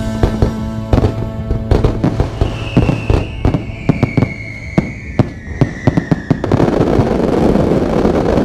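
Fireworks going off in rapid cracks and bangs, with a long falling whistle through the middle and a dense crackling burst near the end. Background music fades out in the first couple of seconds.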